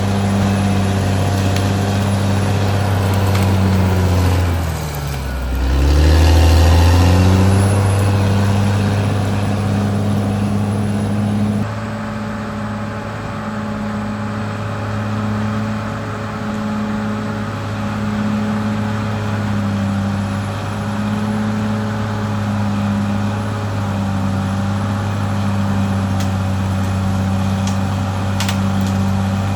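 Caterpillar D6R XL bulldozer's diesel engine running steadily. About five seconds in, its pitch dips sharply and climbs back.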